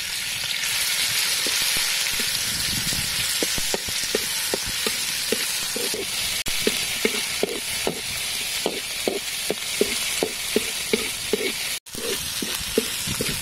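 Chopped garlic, chili and shallots sizzling in hot oil in a wok. From about three seconds in, a metal spatula scrapes and stirs them, about two to three strokes a second.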